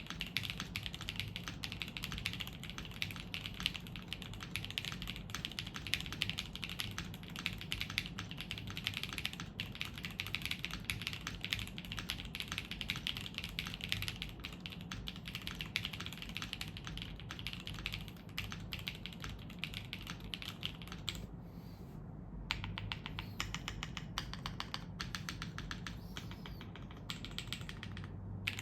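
QK80 mechanical keyboard with Gateron CM 3.0 switches on a polypropylene plate with plate foam and Aifei keycaps, typed on continuously in quick, dense keystrokes. About 21 seconds in the typing pauses briefly, then resumes as a rapid, evenly spaced run of key presses.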